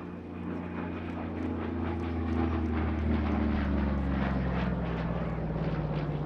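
Yak-3 UTI warbird's piston engine and propeller passing overhead in a display pass. It gets louder over the first two or three seconds, and the engine note falls steadily in pitch as the aircraft goes by.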